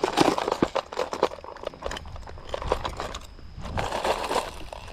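Fishing lures clicking and clattering against each other and against a clear plastic tackle box as a hand rummages through its compartments. The clicks and knocks come irregularly.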